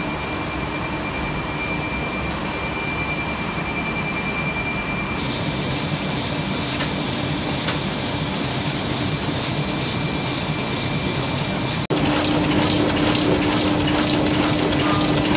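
Sheetfed offset printing press running: steady machine noise with a faint high whine and a low hum, which steps louder about twelve seconds in.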